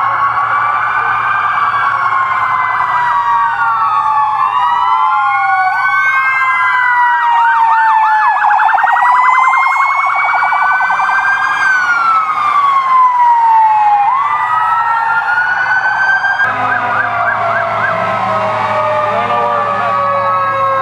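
Sirens of several fire engines sounding at once, overlapping wails rising and falling in pitch, with quick yelping bursts about eight seconds in and again near the end. A louder rush of noise joins about sixteen seconds in.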